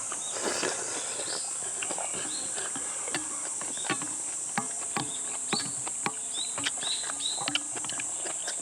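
Steady high-pitched chorus of summer insects, over scattered sharp clicks and knocks of spoons and chopsticks against bowls while eating. Short high chirps repeat several times in the latter half.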